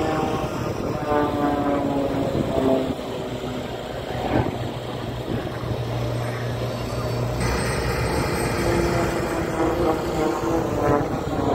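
Aircraft engine drone at an air show, steady throughout, with a low hum that holds for a few seconds mid-way and stops.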